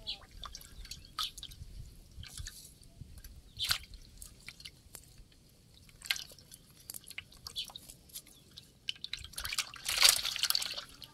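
Small wet splashes and drips of water from live fish stirring in a shallow metal bowl and a wet fishing net being handled, with a louder burst of splashing about ten seconds in.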